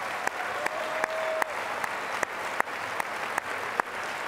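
Large audience applauding: a dense, steady clatter of many hands, with a few sharp individual claps standing out.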